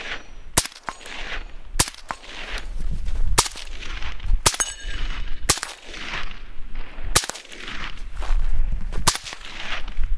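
Suppressed AR-57 short-barrelled carbine in 5.7x28mm fired semi-automatically in slow, aimed shots, about nine in all at roughly one a second. Each shot trails off in an echo, and after a few of them a faint high ring follows, the sound of steel targets being hit.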